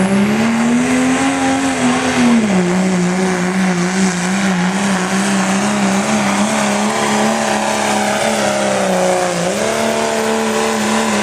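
Dodge Ram pickup's Cummins turbo-diesel engine running at full throttle under heavy load while pulling a weight sled. The engine note climbs in the first second or two, settles a little lower and holds steady, then dips briefly near the end before coming back up.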